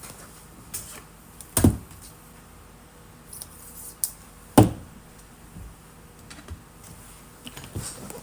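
Trading cards and card packs being handled on a table: scattered light taps and clicks, with two louder knocks about one and a half and four and a half seconds in.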